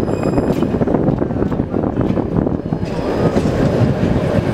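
71-623.02 tram running along the track: a steady rumble of steel wheels on the rails. It gets hissier about three seconds in.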